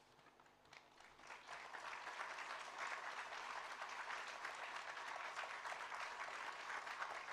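Audience applauding: a few scattered claps at first, then swelling into steady applause about a second and a half in.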